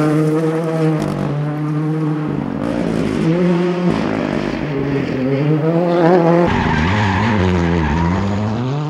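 Ford Fiesta Rally2 car's turbocharged engine revving hard on a tarmac stage, its pitch rising and falling through gear changes and corners. The sound jumps abruptly a few times from one passage to another.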